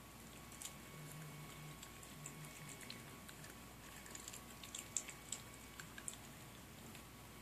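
Faint, scattered crunching clicks of a puppy chewing dry kibble, with a run of sharper crunches about two-thirds of the way through.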